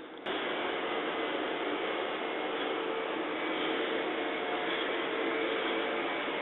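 JR 205 series electric commuter train moving alongside a station platform: a steady rushing noise with a faint constant hum, starting suddenly about a quarter of a second in.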